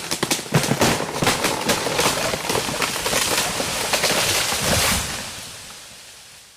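A dense, irregular crackle of many sharp pops, fading out over the last second and a half.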